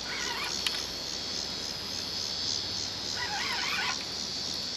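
Steady, evenly pulsing high-pitched insect chorus from the riverbank vegetation. Two brief warbling calls are heard, one at the start and one about three seconds in.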